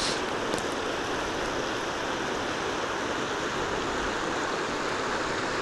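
Steady rush of water from the Split Rock River running over rapids.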